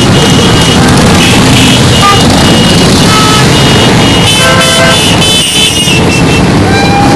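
Many motorcycle engines running as a pack of touring motorcycles rides past at low speed. Horns toot several times over the engine noise, with one longer honk about four and a half seconds in.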